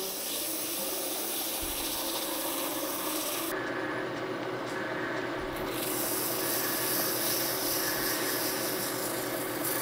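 Fine-grit sandpaper hissing against a small cherry-wood wine stopper spinning on a wood lathe, over the lathe's steady running hum. The sanding hiss breaks off for about two seconds a few seconds in, then resumes.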